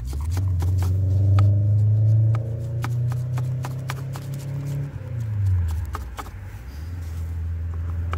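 Quick, irregular scraping clicks of a plastic fish scaler being drawn over small gobies to strip their scales, over a loud low engine drone whose pitch drops about five seconds in and then holds steady.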